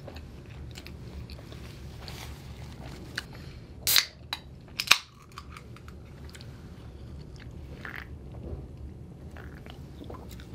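A person chewing soft cheese naan with curry, with small wet mouth clicks and two short sharp noises about four and five seconds in.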